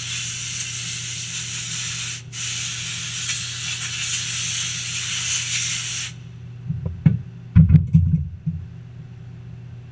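Compressed-air blow gun hissing in two long blasts, with a brief break just after two seconds in, as it blows off a freshly turned lathe part. It stops about six seconds in and is followed by a few short clunks, the loudest sounds, as the part and gun are handled. A low machine hum runs underneath.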